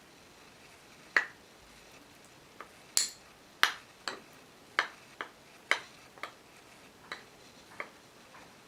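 A spoon clinking and tapping against a bowl as two tablespoons of honey are spooned in. There are about a dozen light, sharp knocks at uneven intervals, the loudest around three to four seconds in.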